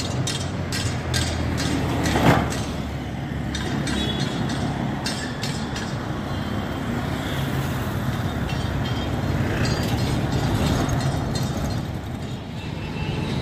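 Road traffic: motorbikes and cars passing on a busy city road as a steady rumble, with a run of sharp clicks in the first few seconds and a louder burst about two seconds in.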